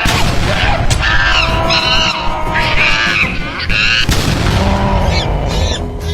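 Dense sound-effect mix over background music: a heavy boom at the very start and another about four seconds in, with high wavering cries in between.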